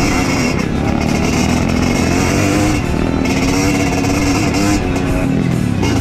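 Trail motorcycle engine running steadily while riding, its pitch wavering a little.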